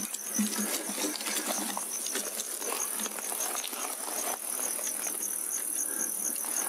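Night insects chirping: a regular series of short high chirps, about three a second, over a steady high hiss. Close rustling and small knocks come and go over it.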